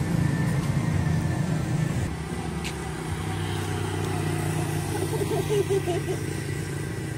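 A steady low engine drone, like a motor vehicle idling, that shifts slightly about two seconds in, with a brief higher wavering sound around five seconds in.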